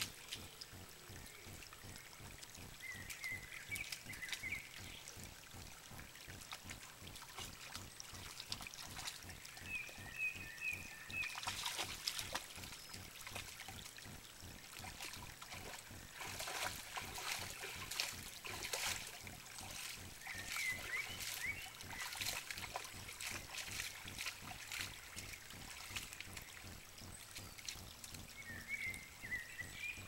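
A dog lapping and splashing in shallow muddy pond water: irregular slurps, drips and splashes, busiest about a third and halfway through.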